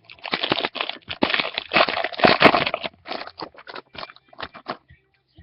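Trading card pack wrapper being torn open and crinkled, a dense crackling for about three seconds, then a run of short separate rustles and clicks as the cards are handled.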